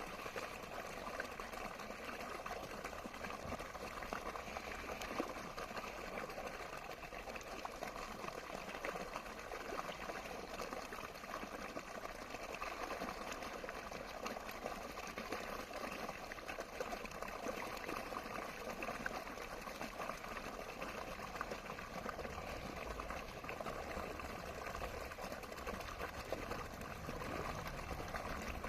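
Running water flowing steadily: an even rush of water dense with small splashes, unchanging throughout.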